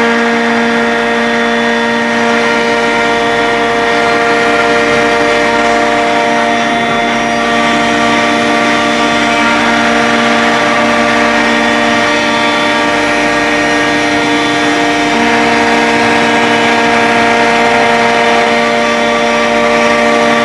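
CNC router with a rotary axis running steadily: a constant whine of several steady tones over a noisy haze, with no pauses.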